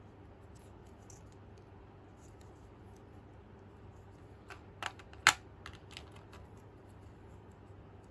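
Fingernails and miniature toy breads clicking as they are handled and swapped, a scatter of faint ticks with a short cluster of sharp clicks about halfway through, two of them much louder than the rest.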